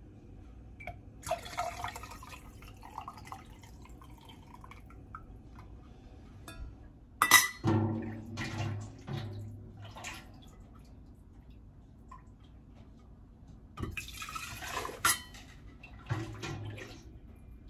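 Chicken broth being ladled through a stainless steel canning funnel into glass quart jars: several short pours and splashes of liquid, with sharp clinks of the ladle and funnel against metal and glass, the loudest about seven seconds in.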